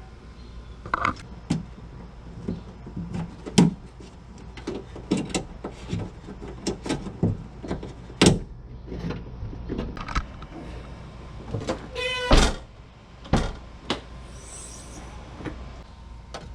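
Hand work on a car liftgate's lock and trim: a string of irregular clicks, taps and knocks from plastic clips and parts being handled and fitted, with a short rapid rattle about twelve seconds in.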